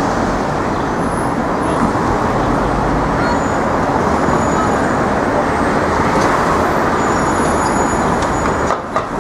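Steady city street traffic: a continuous wash of cars, buses and trucks running past, dipping briefly near the end.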